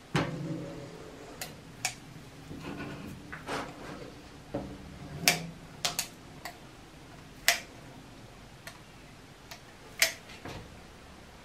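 Irregular sharp clicks of a silicone caulking gun's trigger and plunger rod being worked, mixed with light knocks as the gun and wooden blocks are handled on a steel cabinet top.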